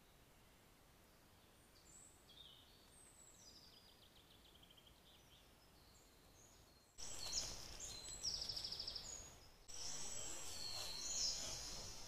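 Woodland songbirds singing, a mix of chirps, short whistled phrases and rapid trills. Faint at first, the song becomes much louder suddenly about seven seconds in, over a background hiss.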